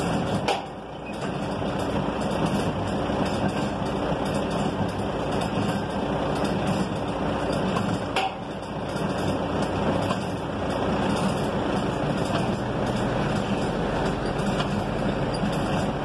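A truck engine idling steadily, with the semi-trailer's hand-cranked landing gear being wound down and a couple of sharp metallic clicks from the crank and gear.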